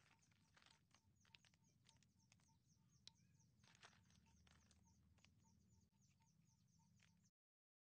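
Near silence, with faint scattered clicks of snail shells knocking together as hands sort them in a woven basket. The sound cuts to dead silence near the end.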